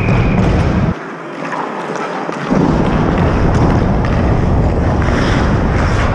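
Wind rumbling on a helmet-mounted action camera's microphone as its wearer moves on the ice. The low rumble lets up for about a second and a half, starting about a second in.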